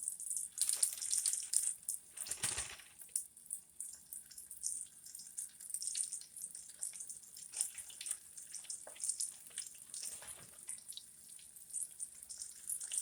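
Flour-coated chicken pieces sizzling and crackling in hot oil, with a louder surge of sizzle about two and a half seconds in.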